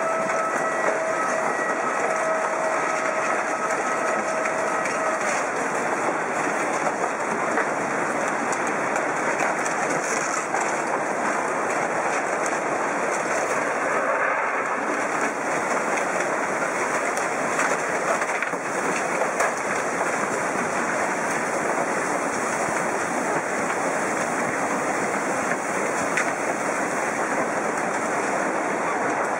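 Tsunami floodwater surging through a town, with a loud, continuous roar of rushing water and churning debris as wooden houses are crushed and swept away. A steady pitched tone sounds over it for the first five seconds or so, then stops.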